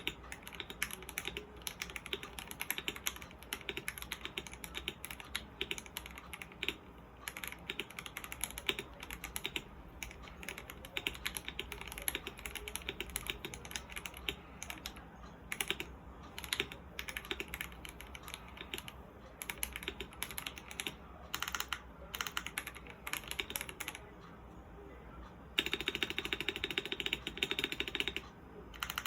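Typing on a mechanical keyboard fitted with Domikey x iNKY Silent Forest keycaps: a steady run of keystroke clacks with brief pauses, getting faster and louder near the end.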